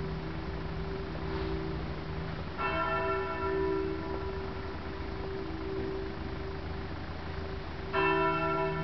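Bells of Pistoia Cathedral ringing. A bell strikes twice, about five and a half seconds apart, over the steady hum of bells still sounding from earlier strokes.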